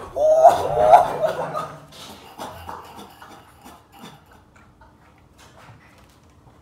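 A person's voice in several short, pitched vocal bursts over the first second and a half, then faint scattered taps and knocks.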